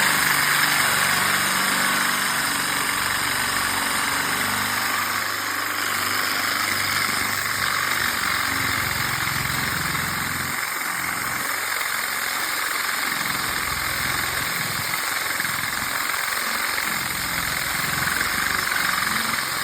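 Electric drill running steadily under load, its bit cutting through tough steel: a constant whirring hiss over the motor's hum.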